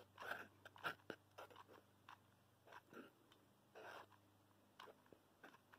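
Mostly near silence, broken by faint, scattered small clicks and scratches as a hot glue gun lays beads of glue onto a foam-board piece.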